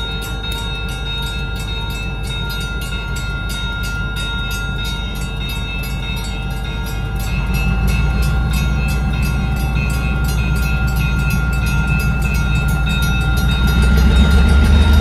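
Two EMD GP15-1 diesel locomotives rumbling slowly past, their engine sound growing louder about halfway through and again near the end. Over this a grade-crossing bell rings in a steady, rapid rhythm.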